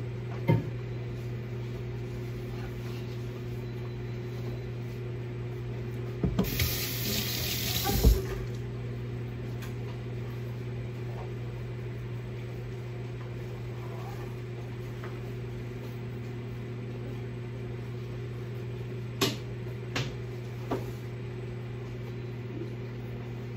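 Steady low hum of a small room, with a loud hiss lasting about two seconds some six seconds in that ends in a sharp knock, and three light knocks about two-thirds of the way through.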